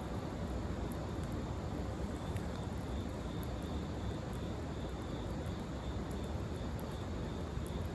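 Steady low rumbling background noise with faint, scattered crackles, as from wood burning in a fire pit stand.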